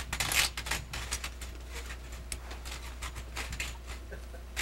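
Irregular clicks and light metallic rattling from horse tack and hooves as saddled horses stand and shift, with a brief rustle about half a second in.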